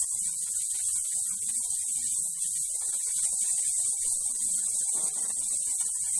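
Steady hiss with a low, wavering hum underneath, and a brief slightly brighter patch about five seconds in; no sizzling is heard from the cloves.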